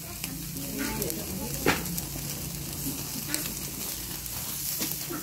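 Pork grilling directly on hot charcoal, sizzling steadily, with a few sharp pops, the loudest about a second and a half in.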